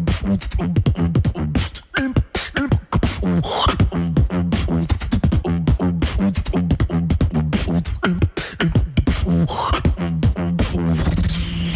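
Beatboxing: fast mouth-made drum hits and clicks over a deep, pulsing bass line, with a rising sweep about three and a half seconds in and again near the end.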